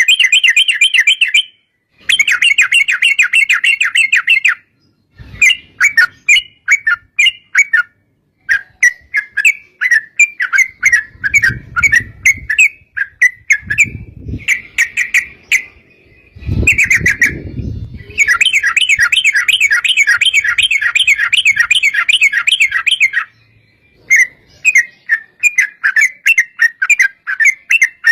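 Yellow-vented bulbul singing: long phrases of fast, bubbly chattering notes broken by short pauses, with the densest rapid trills near the start and again for several seconds past the middle. A low rumble sits under the song for a while mid-way.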